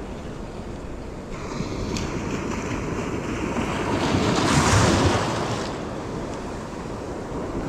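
Surf washing on a beach, with wind buffeting the microphone. The wash swells to its loudest about four to five seconds in, then eases off.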